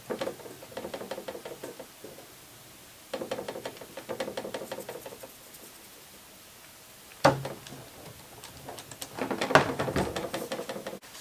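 Rapid small clicks and scrapes of a small flathead screwdriver working screws in a Roomba's plastic housing, in three bursts, with one sharp knock of a part set down about seven seconds in.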